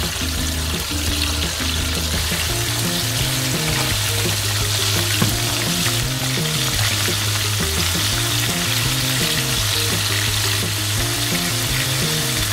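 Cornstarch-coated fish pieces sizzling steadily as they fry in hot oil, with background music underneath.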